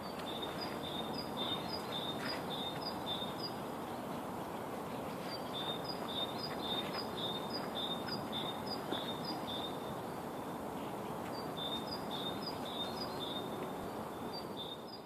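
A songbird singing a quick repeated two-note phrase, high note then lower note, in three runs of several phrases each, over steady background noise.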